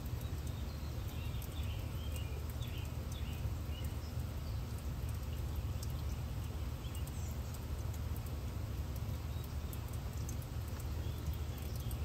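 Garden water fountain splashing steadily under a low wind rumble, with small birds chirping faintly in the first few seconds and again near the end.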